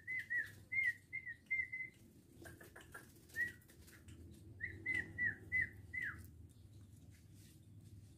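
Short whistled notes at one pitch, each dipping at its end, in two quick runs of about six notes. A few light clicks fall between the runs.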